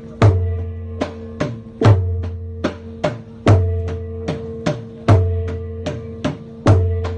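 Thai temple-boat drums beaten in a repeating rhythm: a deep, booming stroke about every one and a half seconds, with quicker, lighter strokes between, over a steady ringing tone.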